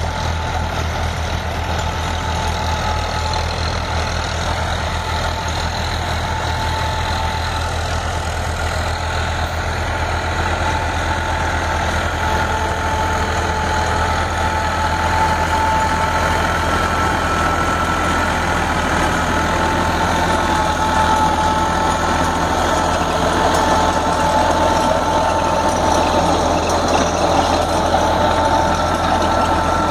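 Massey Ferguson 9000 tractor's diesel engine running steadily under load, driving a Jadhao Layland CME-1800 rotavator as it tills dry soil. A steady high whine rides over the engine, growing slightly louder from about halfway through.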